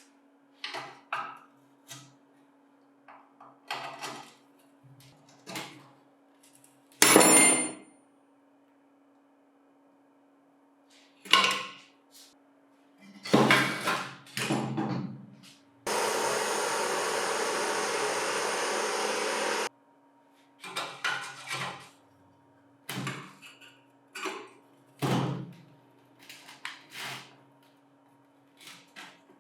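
Scattered knocks and clatters of tools and metal parts being handled, one of them sharp and loud about seven seconds in. About halfway through comes a steady hiss that lasts about four seconds and cuts off suddenly. A faint steady hum runs underneath.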